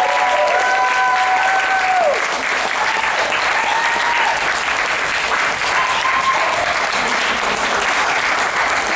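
Audience applauding steadily at a curtain call, with a few voices calling out long held cheers over the clapping in the first two seconds.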